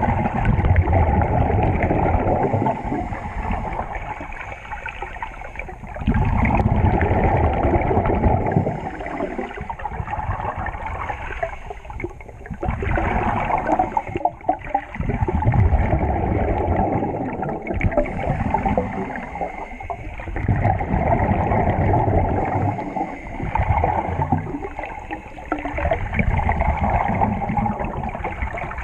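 Scuba regulator breathing underwater: a burst of exhaled bubbles rumbling and gurgling every few seconds, with quieter stretches between breaths.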